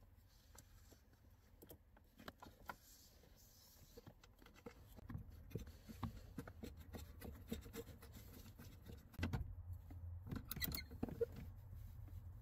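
Faint small clicks, scrapes and rustles of hands fitting a heavy wire's ring terminal onto a stud under a truck's dashboard, then a ratchet wrench tightening it. The sounds grow louder about halfway through, with clusters of quick sharp clicks from about nine seconds in.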